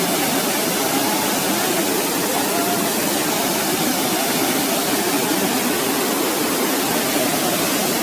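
Waterfall rushing: a steady, even hiss of falling water.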